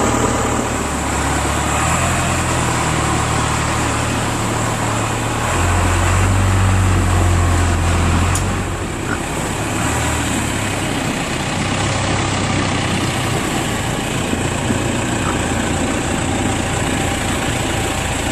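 Backhoe's diesel engine running steadily, growing louder for a few seconds about six seconds in.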